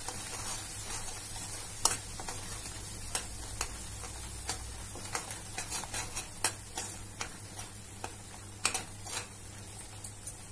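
A spoon stirring spinach paste in a nonstick pan: irregular clicks and scrapes against the pan over a steady sizzle from the frying masala.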